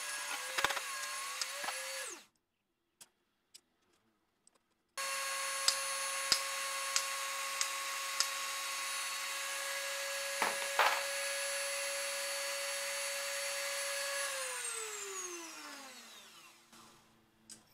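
Dremel rotary tool with a metal cut-off wheel running at high speed with a steady high whine. It cuts out about two seconds in, comes back at full speed about five seconds in with a few sharp ticks, and near the end is switched off and winds down in a falling whine.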